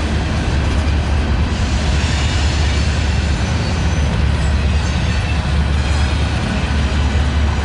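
Freight train of covered hopper cars rolling past close by: a steady, loud low-pitched noise of steel wheels on rail, with no distinct clicks or breaks.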